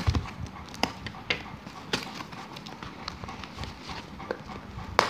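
Cardboard packaging being pulled open by hand: rustling with irregular sharp crackles and snaps of the cardboard and tape, the loudest near the end.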